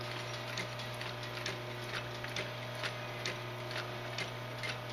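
Glaco industrial walking-foot sewing machine stitching leather slowly, eased along at the handwheel: a sharp mechanical click at each stitch, about two a second, over the steady hum of its motor.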